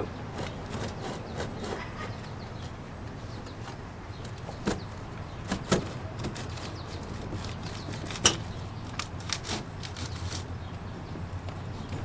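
A wooden board being worked loose and pulled out from under the propane fridge's components, with scattered sharp knocks and clicks of wood against the compartment, the loudest about eight seconds in, over a low steady hum.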